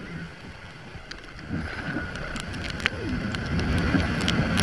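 Wind buffeting the microphone of a camera on a moving motorcycle in heavy rain, growing louder after about a second and a half, with many sharp ticks of raindrops striking the camera.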